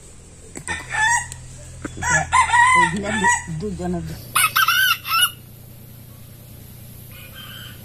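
Rooster crowing, several loud crows over the first five seconds.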